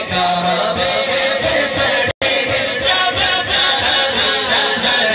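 A man's voice chanting an unaccompanied naat recitation into a microphone, a melodic, drawn-out vocal line. The sound cuts out completely for an instant about two seconds in.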